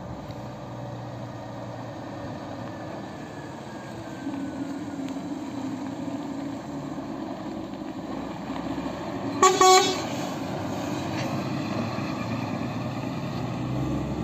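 Fire engine's diesel engine running and growing louder as it approaches and turns, with two short horn blasts in quick succession about two-thirds of the way through.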